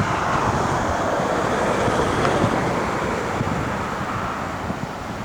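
Steady rushing road and wind noise of a car driving, easing slightly near the end.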